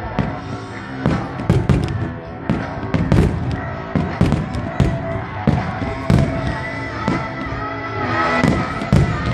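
Aerial firework shells bursting in a display, sharp bangs about two a second at irregular intervals, over loud pop music with a singing voice.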